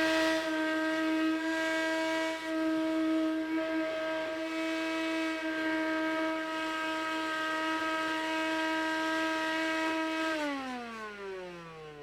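Shop vac motor running with a steady high whine, then switched off about ten seconds in and spinning down with a falling pitch. The owner fears the vac may be dying from all the bilge gunk it has sucked up.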